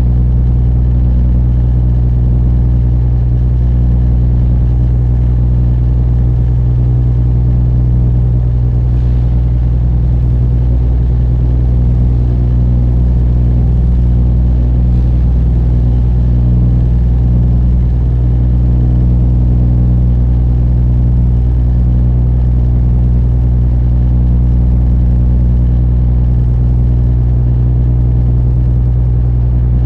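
Diesel engine of a Dutch spits barge running steadily under way: an even, low drone.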